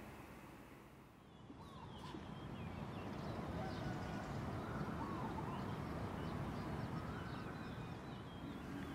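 Outdoor morning ambience that fades in about a second in: birds chirping and calling repeatedly over a steady low city hum.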